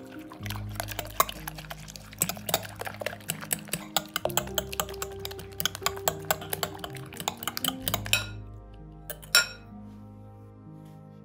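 Metal fork beating eggs in a glass bowl, the tines clicking quickly and unevenly against the glass, stopping about eight seconds in. About a second later come two sharper clinks of the fork on the bowl, the loudest sounds here.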